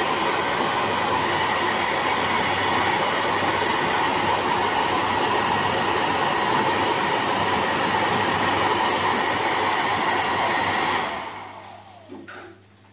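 An electric motor driving a fan runs at a steady speed with a loud rushing whir, then is switched off about eleven seconds in and winds down over a second or so.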